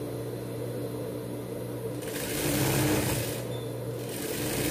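Electric sewing machine stitching a seam, its motor humming steadily, louder and busier for about a second and a half midway.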